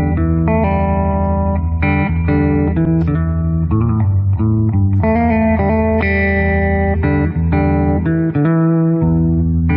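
Guitar-led instrumental background music with bass guitar, notes changing about every half second.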